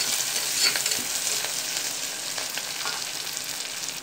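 Small onions (shallots), green chillies and curry leaves sizzling in hot oil in an aluminium pressure cooker, stirred with a metal spatula that scrapes and clicks against the pot; the clicks thin out in the second half, leaving the steady sizzle of the sauté.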